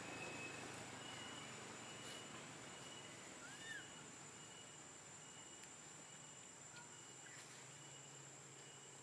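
Faint forest ambience: steady high-pitched insect buzzing, with a brief chirp about three and a half seconds in.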